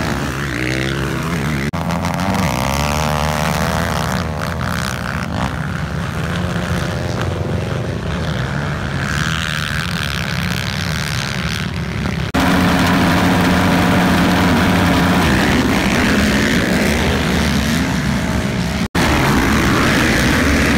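Racing quad (ATV) engines revving hard as the quads ride past, the pitch rising and falling with each pass. About twelve seconds in, a louder stretch of engines running hard begins. Near the end, after a brief dropout, several quads rev together.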